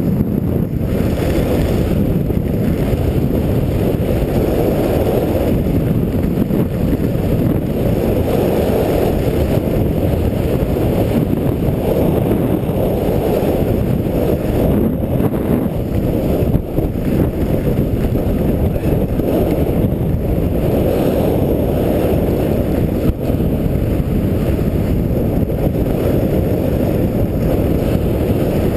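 Steady rush of wind on the microphone of a camera worn by a skier running downhill, mixed with the hiss of skis over groomed snow.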